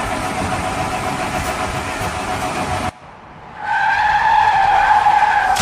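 Car sound effects: a steady rush of car noise that cuts off about three seconds in, then after a short gap a long steady high tone like a tyre skid.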